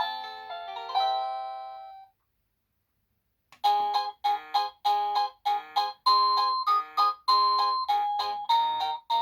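EMASTIFF wireless doorbell chime playing its polyphonic electronic ringtones. One melody ends and dies away about two seconds in. After a second and a half of silence the next tune starts, a quick run of short notes at about three a second.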